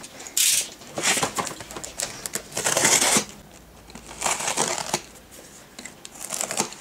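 Brown packing tape on a cardboard box being cut and ripped open, in about five short scratchy bursts.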